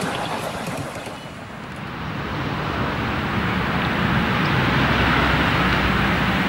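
Miniature railway carriages rolling past on the rails, their wheels rattling and clicking, fading out after about a second. Then a steady rushing noise with a low hum.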